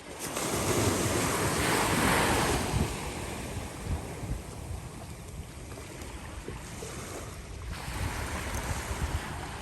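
Ocean surf: a wave breaking and washing up the beach, loudest about one to three seconds in, then a steadier lower wash of surf, with wind buffeting the microphone.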